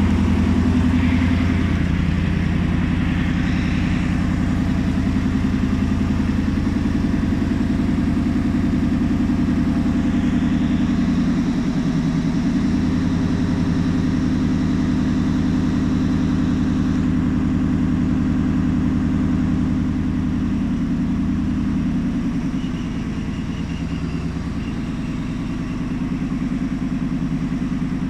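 Diesel engine of a mobile crane running steadily. Its note shifts a little a few times and eases slightly about three-quarters through.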